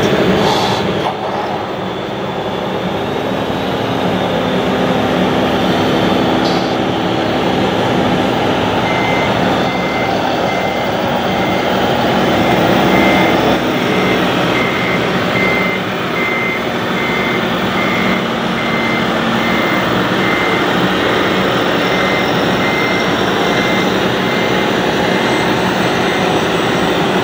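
RC model construction trucks running with their diesel-engine sound modules, a steady mechanical rumble. From about a third of the way in until near the end, a reversing-alarm beeper sounds in an even, steady series of high beeps.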